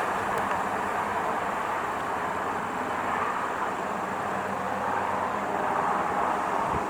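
Steady rushing noise with a faint low hum, even in level throughout.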